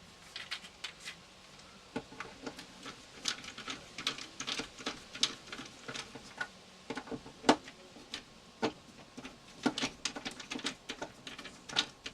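Irregular light clicks and taps of hands working with tools, wire and small parts, the sharpest about halfway through.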